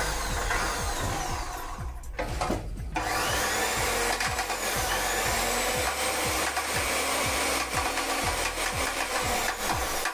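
DCA 14-inch chop saw's universal motor running on a test run after a new armature and carbon brushes, powered through a series test lamp. The running noise dips briefly about two seconds in, then picks up again with a faint rising whine.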